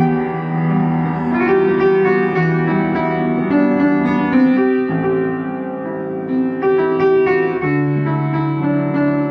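Background music: a light piano-led tune with a moving melody over held bass notes.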